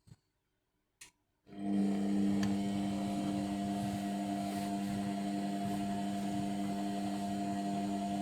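Indesit washing machine's drum motor starting up about a second and a half in after a near-silent pause with a single click, then running with a steady, tonal hum as it turns the overloaded drum.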